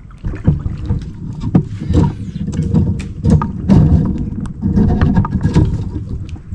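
Repeated irregular splashes and knocks at the side of a paddleboard as a hooked fish thrashes at the surface and is fought up beside the board.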